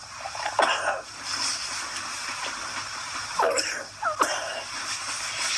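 A man in a coughing fit: sharp coughs with wheezing, gasping breaths between them.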